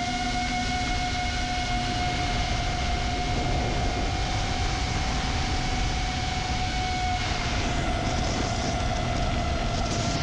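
FPV quadcopter's T-Motor F60 Pro II 2700kv brushless motors and propellers whining at a steady pitch in forward flight, over a low rumble. About seven seconds in the pitch dips slightly and a hiss rises, and near the end the pitch drops a little more.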